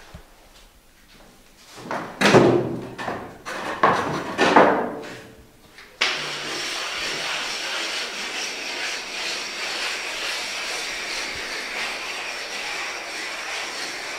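A few loud knocks and bangs, then a steady hiss that starts suddenly about six seconds in and keeps going.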